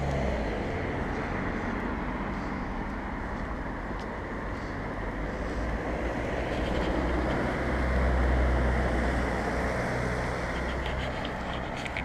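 Road traffic noise: a steady rumble of passing cars, swelling about seven to nine seconds in as a car goes by.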